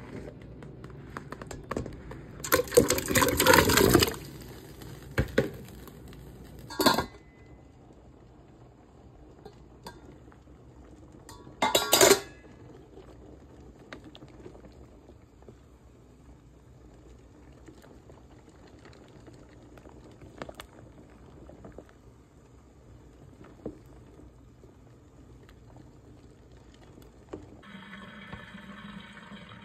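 Metal pot and cookware clattering as cut potatoes are tipped into a steel pot of water: a dense splash and clatter lasting over a second, a few sharp knocks, and another loud clatter midway. The potatoes then boil faintly in the pot, and near the end water runs as they are drained into a plastic colander.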